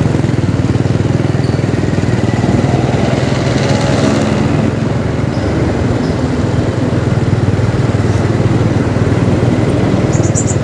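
A small vehicle engine running steadily under road and wind noise, heard from on board while travelling along a city road.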